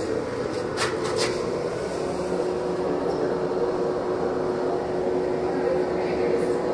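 A steady mechanical hum with a constant low tone under an even noise. A couple of faint clicks come about a second in.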